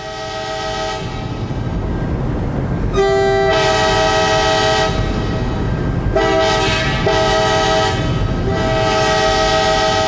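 Locomotive air horn sounding a chord of several notes at once, blown in repeated blasts of roughly one to two seconds with short breaks between them, over a steady low rumble.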